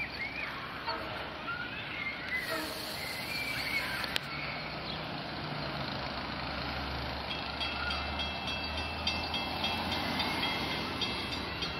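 Long Island Rail Road diesel push-pull train approaching (a DE30AC locomotive pushing C3 bilevel cars), a low rumble coming in about four seconds in. Birds chirp over the first few seconds, and from about seven seconds in a bell rings rapidly and repeatedly.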